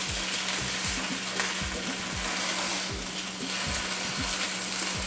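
Cornmeal-breaded chicken thighs sizzling steadily as they fry in olive oil in a non-stick skillet, with a steady low hum underneath.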